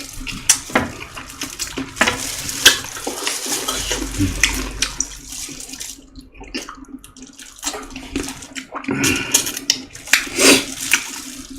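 Wet eating sounds of boiled chicken soup: chewing and slurping with irregular smacks and clicks.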